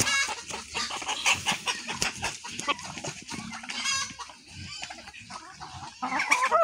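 A flock of Kabir hens clucking, with short calls at the start, about four seconds in and a louder one near the end. Many quick taps run under the calls as the hens peck at the ground.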